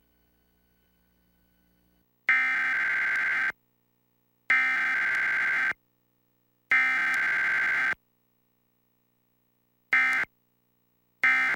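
Emergency Alert System SAME digital data bursts: three header bursts of about a second each, spaced about two seconds apart, followed near the end by two short end-of-message bursts.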